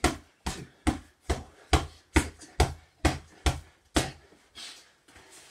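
Ten heavy gloved punches landing on a punch bag that lies on the floor, about two thuds a second, one after another.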